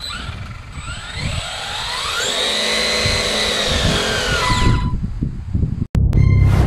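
Arrma Granite 4x4 3S BLX's brushless motor and drivetrain revving with the truck held off the ground, wheels spinning free: a whine that rises over a couple of seconds, holds high, then falls away and stops about five seconds in. Near the end a deep drum-like hit of music comes in.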